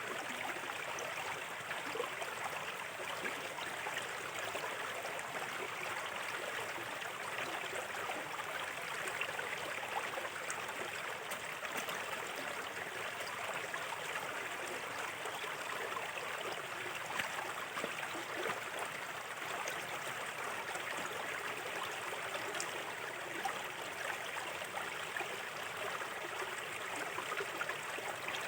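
Small river stream flowing steadily, water babbling and trickling over stones with constant small splashes.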